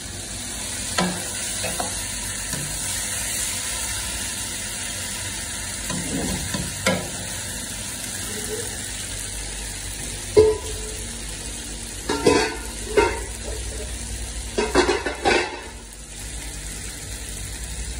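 Mutton and potatoes sizzling in a wok (karahi) over a gas flame, with a steel ladle stirring and scraping against the pan. Sharp ladle scrapes and clinks come every few seconds, more often in the second half, over a steady frying hiss.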